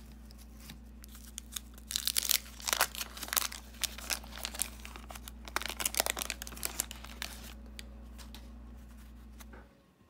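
Paper wrapper of a 1991 Fleer basketball card pack being torn open and peeled off the cards, a run of sharp crackling tears and crinkles starting about two seconds in and lasting about five seconds.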